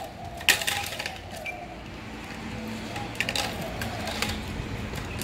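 A person eating soft cake: scattered mouth clicks and smacks while chewing, the sharpest about half a second in, over a steady low background hum.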